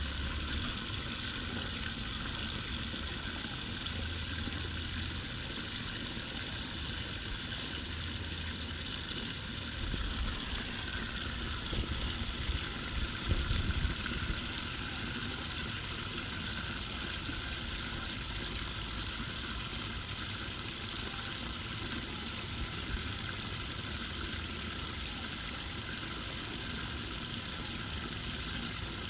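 Floodwater running steadily down a cleared street drain, with a few low bumps partway through.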